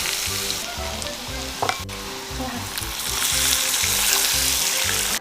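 Food frying in a hot pan, a dense sizzle with stirring, over steady background music. The sizzle cuts off suddenly at the end.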